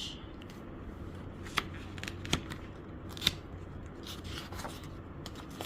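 Soft rustling and a few faint sharp clicks from handling the pages of a paper picture book, over a low steady room hum.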